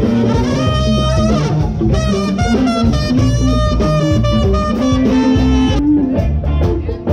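Loud background music with guitar and a steady beat, starting abruptly; the arrangement thins out about six seconds in.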